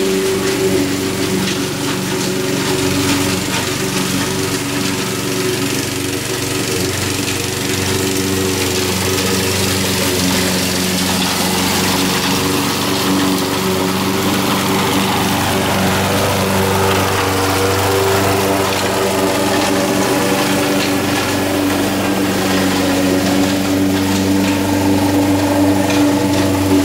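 Honda HR194 push lawn mower's engine running steadily while the mower cuts grass.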